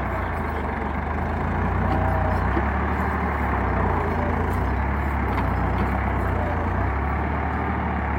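Massey Ferguson 260 tractor's three-cylinder diesel engine running steadily under load as its rear blade pushes soil, the low engine note shifting slightly as the load changes.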